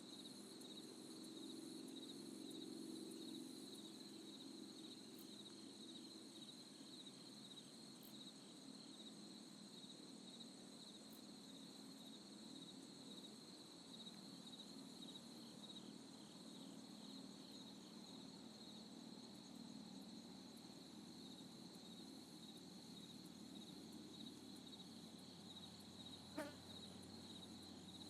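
Faint, steady high-pitched trilling of insects, with one brief sharp tap near the end.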